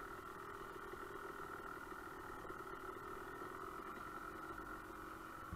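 Dirt bike engine running at a steady, low throttle while the bike rolls along a trail, its note holding even pitch with no revving.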